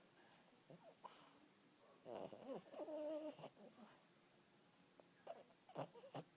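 Boston terrier snoring softly: one long wheezy snore with a wavering pitched tone about two seconds in, then a few short snuffles near the end.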